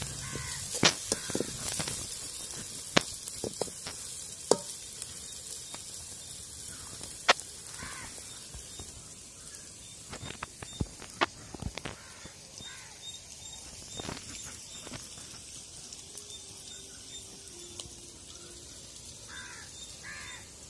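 Sliced onions sizzling in groundnut oil in an aluminium pan over a wood fire, with a steel ladle clinking against the pan as they are stirred in the first few seconds. The sizzle grows fainter, with scattered sharp clicks.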